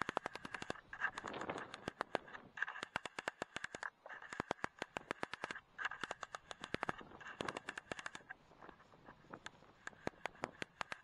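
Rapid, irregular clicking of the Pulsar Digex C50 scope's control dial being turned step by step as the digital zoom is wound up, over a faint steady hiss.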